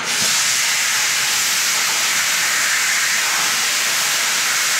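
Pressure cooker of freshly cooked rice letting out steam: a loud, steady hiss as the pressure is released.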